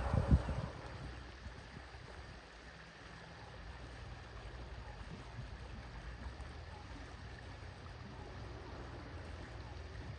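Gentle water sloshing and gurgling around an Asian elephant bathing neck-deep in a river, over a steady low rumble. A soft low thump just after the start is the loudest moment.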